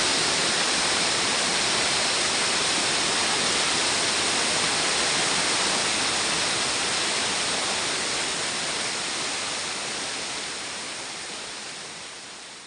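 Waterfall rushing: a steady, dense roar of falling water that fades away over the last few seconds.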